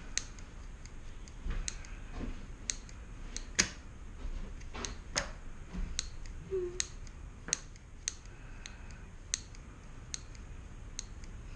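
Mini grease gun being pumped, giving sharp, irregularly spaced clicks, about twenty over the stretch. This clicking comes while air is still being pushed out of the gun.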